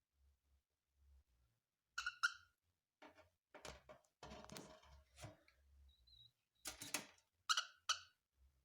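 Cockatiel giving short chirps in quick pairs, once about two seconds in and again near the end, with scattered clicks and scratchy rustling in between.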